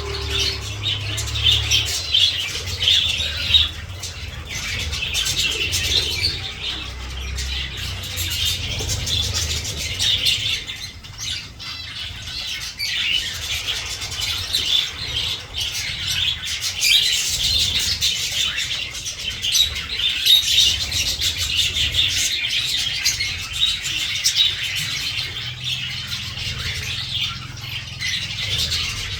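A colony of pet birds chirping and twittering continuously, many calls overlapping into a dense chatter. A low rumble comes and goes underneath.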